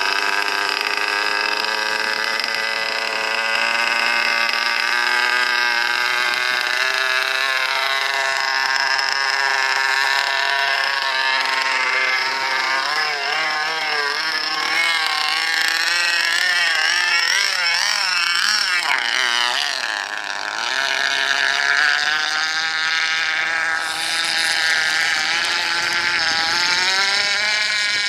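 KB 46 outboard engine of a radio-controlled F1 model racing boat running, a high whine with many overtones. Around the middle its pitch wavers up and down as the throttle is blipped, then it holds high and steady at full throttle.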